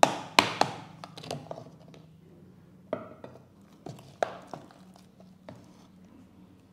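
Metal spoon knocking and scraping inside a food-chopper jar while thick fish paste is scooped out: a scatter of sharp taps, the loudest in the first second and a few more about three to four and a half seconds in.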